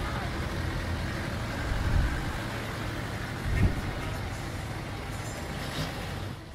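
Busy city traffic: engines of passing cars and heavier vehicles running in a steady noisy wash with a low rumble. The rumble swells about two seconds in and again, more sharply, about three and a half seconds in.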